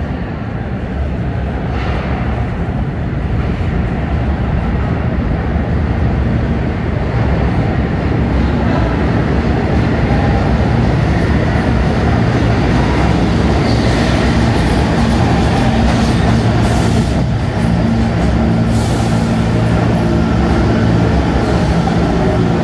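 An R46 subway train arrives through the tunnel and pulls into the station, slowing along the platform. The sound is a dense wheel-and-rail noise that builds over the first ten seconds or so, then stays loud, with a steady low motor hum as the cars come alongside.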